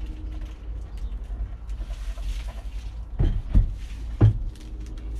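Wooden tabletop being lifted off its metal pole leg and set down on its edge, with three dull knocks between about three and four and a half seconds in, over a steady low rumble.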